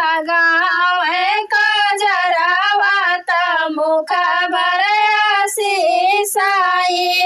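A woman singing a sohar, an Awadhi folk song for a child's birth, solo with no instruments, in long high phrases broken by short breaths.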